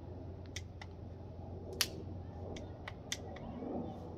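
A few scattered light clicks and taps, the sharpest about two seconds in, over a faint steady low hum.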